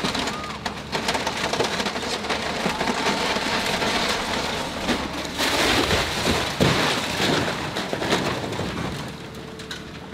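Timber-framed church steeple being torn down and collapsing: a long run of cracking, splintering wood and clattering debris, loudest around six to seven seconds in and dying down near the end.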